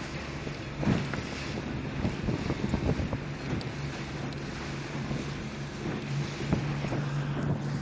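Wind buffeting the microphone aboard a moving boat, over a steady low hum.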